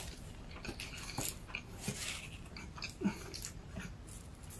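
Faint chewing of a mouthful of burger: soft, scattered mouth clicks and smacks with a few brief low sounds from the throat.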